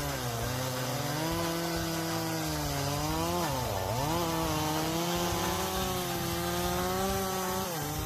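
Chainsaw engine running at high revs while cutting wood, its pitch dipping as it bogs under the load, most deeply about four seconds in, then picking back up.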